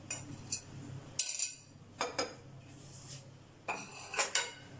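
A spoon clinking and scraping against glass mixing bowls: a string of sharp clinks, with a cluster in the first couple of seconds and another about four seconds in.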